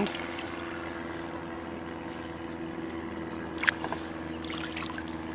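Wet anchor line being hauled in from the water: a few short drips and small splashes over a steady low hum.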